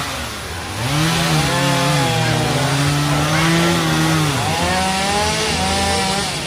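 Two-stroke chainsaw revved up under load, cutting for about three and a half seconds, easing off, then revving and cutting again for a second and a half.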